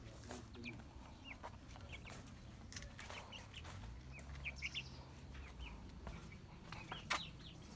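Young white broiler chickens peeping: many short, high cheeps from several birds, scattered and overlapping, with a sharp knock about seven seconds in.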